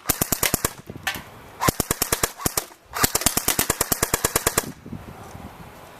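Airsoft gun firing in rapid full-auto bursts, about a dozen sharp shots a second: three bursts, the last and longest stopping a little before five seconds in.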